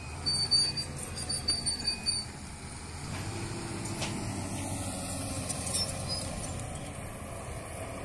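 Bulldozer working nearby: its diesel engine runs with a steady low rumble, and several short high-pitched squeals come in the first two seconds.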